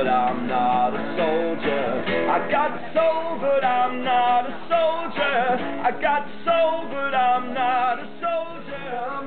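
Acoustic guitar played live, a picked melody of single notes, some bent and wavering, over held chords.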